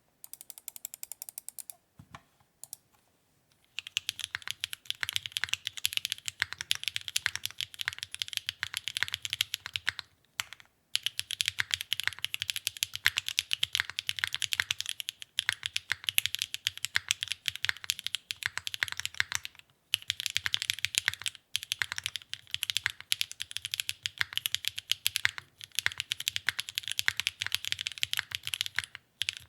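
Continuous fast typing on a Neo65 mechanical keyboard with Kailh BCP switches on a carbon-fibre plate, gasket-mounted PCB and GMK ABS keycaps: rapid keystrokes clacking, starting about four seconds in, with a few brief pauses.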